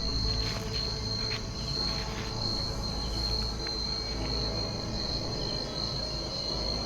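Crickets or similar night insects trilling: a continuous high-pitched chorus held at one pitch, over a low rumble, with a few faint rustling clicks in the first couple of seconds.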